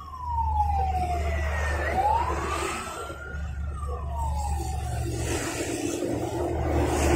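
A siren wailing in one slow sweep, falling, rising and falling again over about five seconds, above the low rumble of road traffic. A vehicle engine grows louder near the end.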